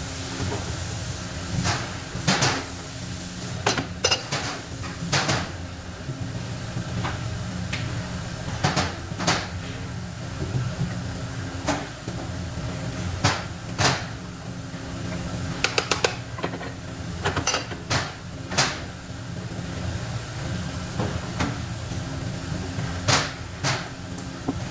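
Irregular sharp knocks and clicks of tools and metal parts being handled and tapped while an electric motor is taken apart, about fifteen in all, over a steady low hum.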